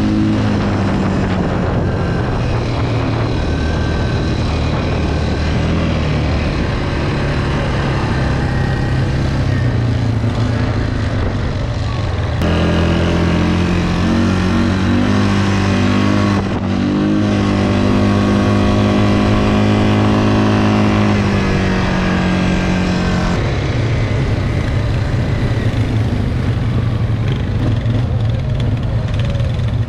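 Quad bike (ATV) engines running steadily under way. The engine note turns higher and fuller about twelve seconds in and drops back abruptly about eleven seconds later.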